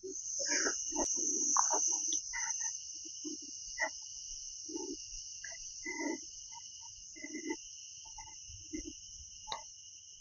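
Forest insects keeping up a steady high-pitched chirring drone, loudest in the first couple of seconds and easing off later. Short, scattered lower sounds come and go over it about once a second.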